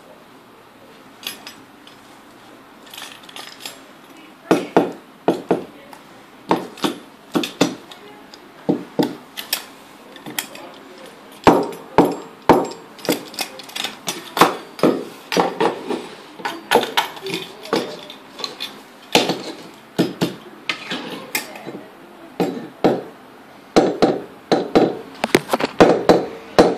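Homemade noise instrument built on a wooden bat, its attached metal parts (wire, screws, metal tabs) played by hand: irregular metallic clicks, clanks and rattles with short ringing, about one or two a second, getting much louder about four seconds in.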